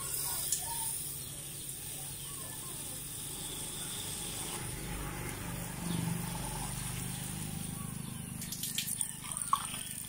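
Water spraying steadily from a garden-hose trigger nozzle into a van's front grille and radiator.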